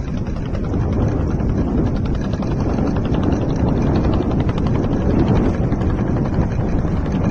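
Strong wind buffeting the microphone over open water: a steady, rumbling noise with no clear engine note.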